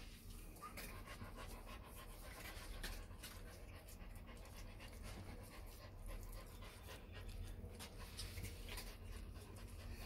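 A dog panting close by, with scattered light clicks throughout.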